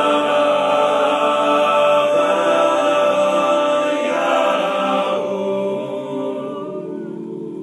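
Men's a cappella group holding the final chord of the song. The upper voices drop out about five seconds in, and the remaining low chord fades away.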